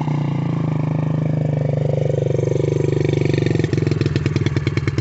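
Small single-cylinder four-stroke engine of a Yamaha TT-R50 kids' dirt bike running steadily, its note breaking into a fast, regular pulsing from about four seconds in.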